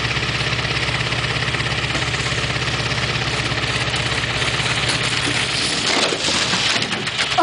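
Pickup truck engine idling steadily, a low even hum. About six seconds in, a brief rush of snow as the sled and its rider slide into the snow close by.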